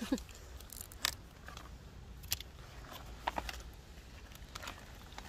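A few faint, crisp snaps and crackles, about one a second, from a cabbage head's leaves being handled and cut with a knife during harvesting.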